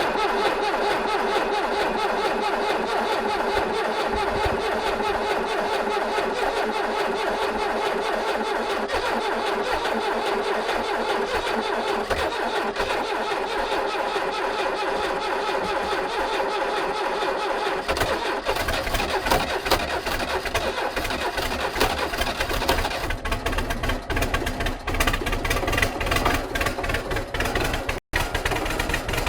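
Belarus MTZ-82 tractor's four-cylinder diesel being cranked over on a cold start in frost, not yet running. The sound is steady at first, then turns rougher and more uneven about two-thirds of the way through, with a brief cut near the end.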